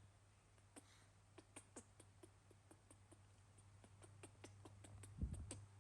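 Near silence: a low steady hum with faint, irregular small clicks and ticks, and a soft thump near the end.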